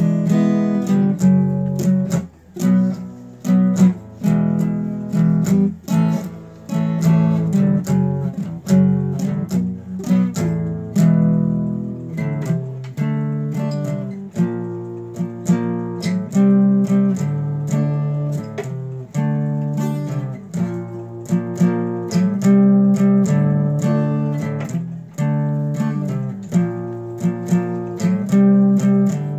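Acoustic guitar strummed in a steady rhythm, chords changing throughout.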